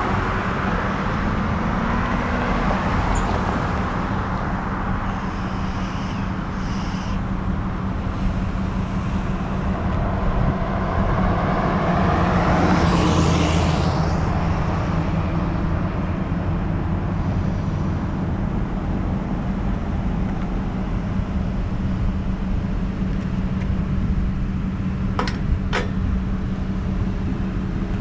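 Road traffic beside a street: a steady rush of vehicles with a low hum, and one vehicle swelling up and passing about halfway through. Two sharp clicks near the end.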